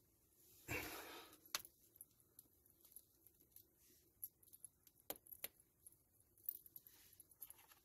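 Faint clinking of a metal chain necklace with coin-like pendants as it is lifted out of loose soil, with scattered small clicks and a brief rustle of soil and glove about a second in.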